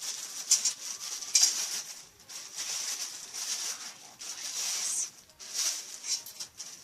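Plastic packaging crinkling and rustling in irregular bursts with sharp crackles as an item is worked out of its plastic wrapping by hand.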